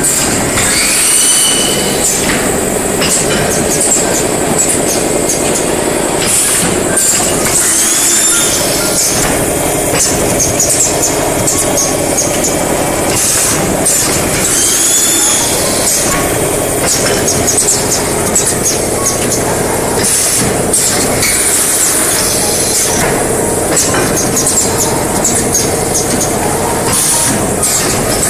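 Automatic blister packing machine running: a loud steady mechanical din with repeated sharp clacks from its pneumatic stations, and a short high squeal that rises and falls a few times, about seven seconds apart.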